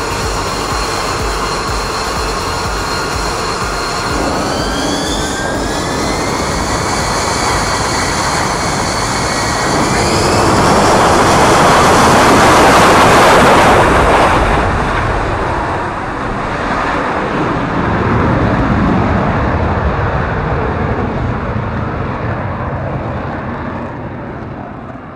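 Single Pratt & Whitney F135 jet engine of an F-35B at high power, a steady whine rising in pitch as it spools up. About halfway through the jet noise swells to its loudest as the aircraft rolls away on a short take-off, then fades into a lower rumble.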